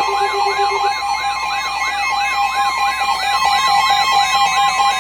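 Emergency Alert System attention signal: two steady tones sounding together under a loud warbling siren tone that rises and falls several times a second.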